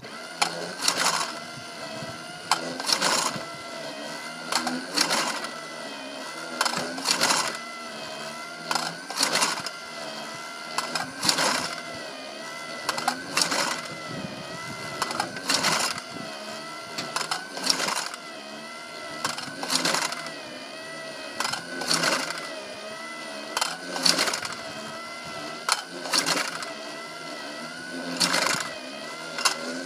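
Automatic clay pigeon launcher running: its motor whirs with a slightly wavering pitch, and a sharp clack about every two seconds as the throwing arm releases and fires each clay in turn from the stack.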